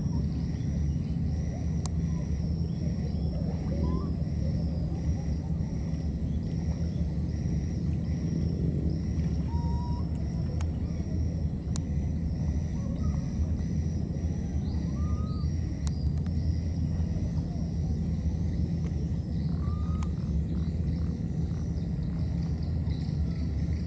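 Outdoor ambience: a steady low rumble under insects chirping in an even pulse, about one and a half chirps a second. A few short, faint rising-and-falling calls come and go, about five in all.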